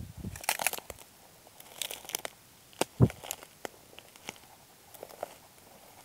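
Footsteps through tall grass and dry stems: irregular crunching and crackling of stalks underfoot, with a heavier thump about three seconds in.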